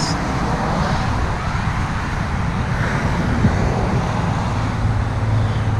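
Steady noise of vehicles passing on a busy highway, with a deeper engine hum coming in near the end.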